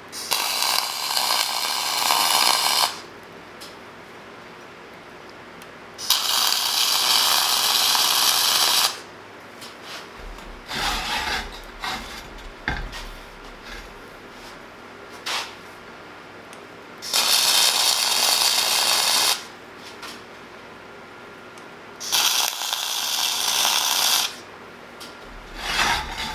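Flux-core MIG welding arc from a Millermatic 251 running .045 flux-core wire, laying four tack welds of about two to three seconds each, crackling while the arc is struck. Light metal clinks and handling sounds fall between the tacks.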